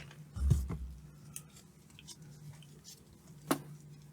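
Handling sounds on a workbench: a dull thump about half a second in, then a few sharp clicks and taps, the loudest near the end, over a faint steady hum.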